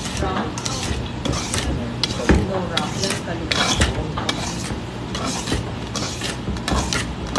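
Wire balloon whisk beating a thick creamy mixture in a stainless steel bowl: quick, repeated scraping strokes of the wires against the metal, a few per second.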